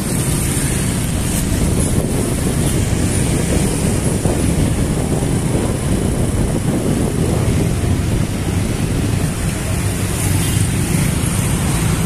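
Steady noise of dense motor-scooter traffic heard from a moving scooter: small engines running under a low rumble.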